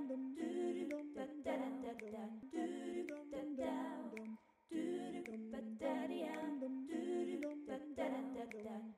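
A voice humming a wordless tune with no accompaniment, in short phrases with a brief break about four and a half seconds in: an end-card outro jingle.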